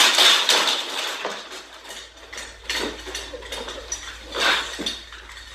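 A loud clatter as a child tumbles onto a hardwood floor, followed by scattered knocks and scrapes as she comes to rest.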